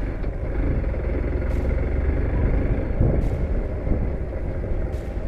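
Hero XPulse 200 4V's single-cylinder engine pulling in a low gear as the motorcycle rides over rough ground, with a heavy low rumble throughout.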